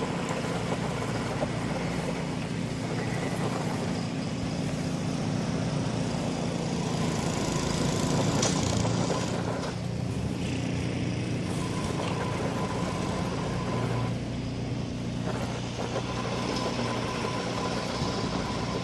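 An engine running steadily with a low, even hum under a broad noisy wash.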